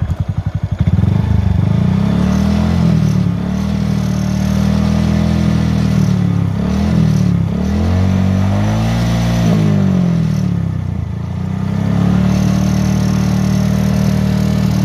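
Honda Grom's 125 cc single-cylinder four-stroke engine revved up from idle about a second in and held at higher revs, dipping and rising again several times in the middle, with a clattering rattle over it. The owner takes the weird noise around 5,000 rpm to be something shaking, most likely loose parts such as the pegs rattling.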